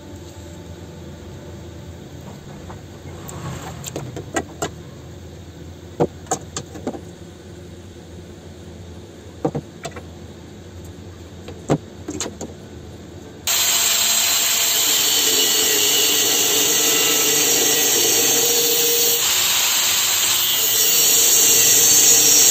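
A few sharp clicks and taps over a low background for the first dozen seconds. About 13 seconds in, an angle grinder with a cut-off disc starts loud and abrupt, cutting through square hollow steel tube, and grows louder near the end as the disc bites deeper.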